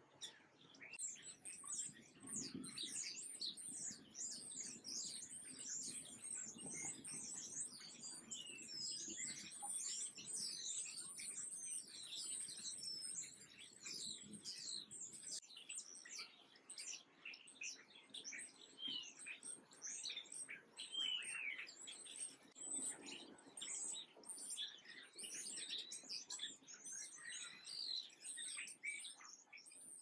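Many small songbirds chirping and twittering without a break, a dense chatter of short high notes, with a faint low rumble swelling now and then underneath.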